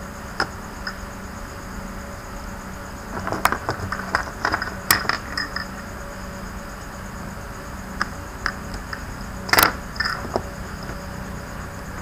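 Fingers handling the heatsink and fan assembly inside an opened laptop: scattered light clicks and scrapes of small plastic and metal parts, a burst of them a few seconds in and the loudest group nearly ten seconds in, over a steady background hum.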